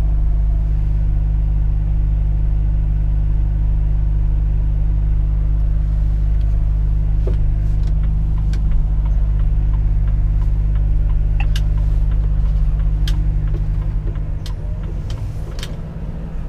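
Volvo FH 460 truck's 13-litre inline-six diesel running at a steady low drone under way, with a few sharp light clicks in the second half; the engine eases off near the end.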